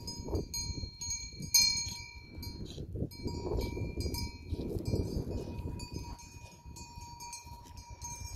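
Bells on a grazing goat herd clanking irregularly, several bells of different pitch ringing together, over a low rumble.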